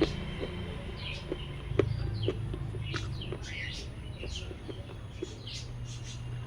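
Small birds chirping repeatedly, with short sharp clicks about twice a second and a steady low hum underneath.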